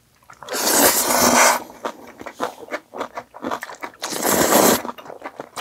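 A person slurping Chapagetti black-bean noodles: two long slurps of about a second each, roughly three seconds apart, with small wet chewing clicks between them.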